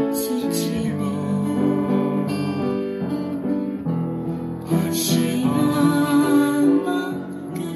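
Upright piano played by ear: a slow ballad melody over sustained chords, with a few firmer chord strikes.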